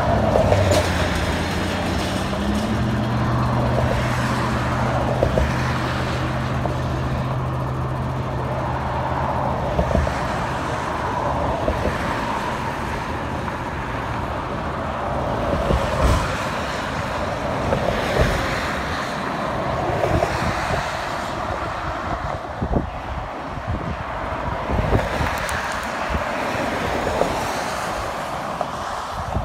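Diesel switcher locomotive's engine running with a steady drone that steps up in pitch about two seconds in and fades out about ten seconds in. After that, the train's wheels clack and knock irregularly on the rails of a steel girder bridge.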